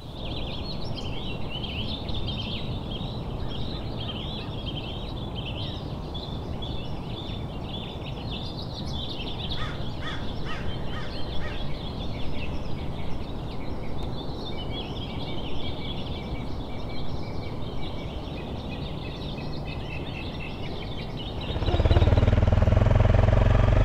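Many small birds chirping and twittering over a steady low background noise. About two seconds before the end, a motorcycle engine cuts in, much louder, drowning out the birdsong.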